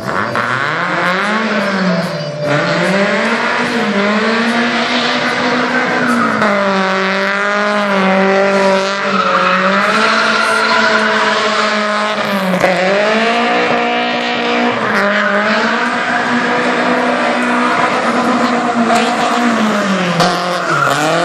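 BMW E36 3 Series Compact being drifted: its engine revs climb and fall again and again as the throttle is worked, over the squeal of its sliding rear tyres.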